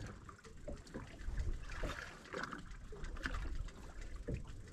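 Water lapping and trickling against the hull of a small fishing boat, with a few faint scattered knocks and clicks.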